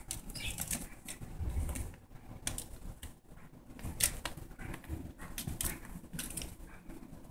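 A kitten scuffling with a sock on carpet: irregular scratching and rustling of claws and paws, with a few soft thumps, the sharpest about four seconds in.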